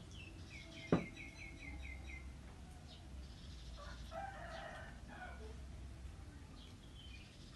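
Background bird calls: a quick run of about eight short high notes in the first two seconds, then a lower pitched call around four to five seconds in. A sharp knock sounds about a second in.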